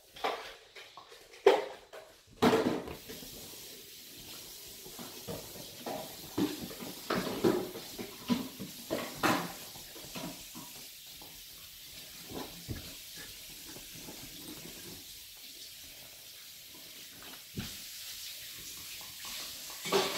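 Huskies scuffling and shifting about on a leather sofa, with a few sharp sounds in the first three seconds, then softer, irregular rustles over a faint steady hiss.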